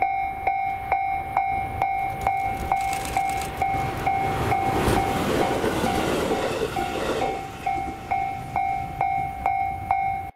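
Japanese level-crossing alarm ringing its steady electronic clang about twice a second, while a train passes through about three to seven seconds in, partly drowning the bell. The sound cuts off suddenly at the end.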